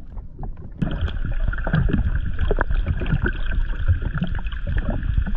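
Muffled underwater sound from a submerged action camera: water sloshing and bubbling with a steady high hiss. It starts about a second in, as the camera goes below the surface.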